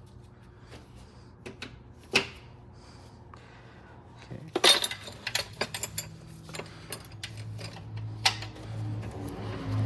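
Scattered clicks, clinks and knocks of hand tools and metal parts being handled during reassembly work under a car's hood. A low steady hum starts partway through and grows louder near the end.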